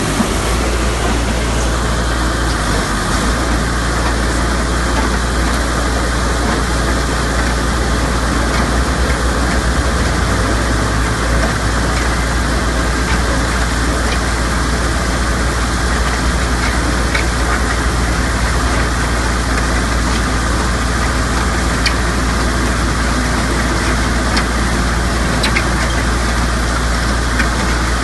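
A truck-mounted concrete mixer pump running: a loud, steady engine drone with machinery noise over it.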